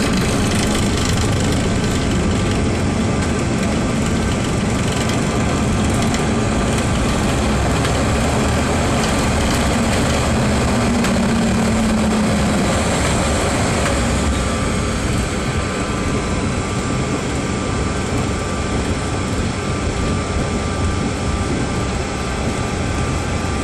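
Cabin noise of a CRJ regional jet on its landing rollout: a loud, steady rush of jet-engine noise and low runway rumble, which eases a little about halfway through as the aircraft slows.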